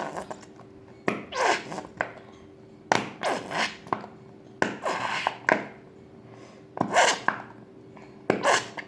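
Plastic liquid-glue bottle being squeezed out: about a dozen short irregular sputtering squelches, several sliding down in pitch, as glue and air are forced from the nozzle.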